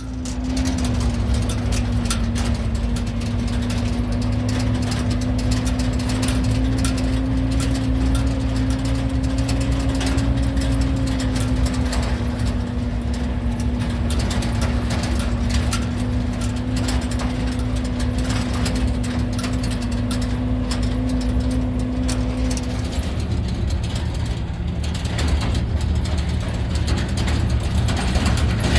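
An engine running steadily with a low rumble and a steady whine that stops about 23 seconds in, with constant light rattling.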